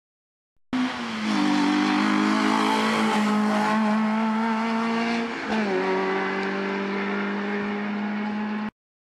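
Peugeot 106 hill-climb race car's engine pulling hard at high revs, its pitch holding nearly steady with a brief dip about halfway through, like a gear change. The sound starts abruptly under a second in and cuts off abruptly near the end.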